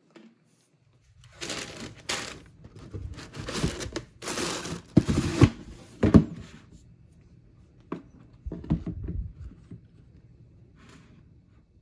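Packaging being handled, crinkling and rustling in a run of bursts, followed by a few short knocks.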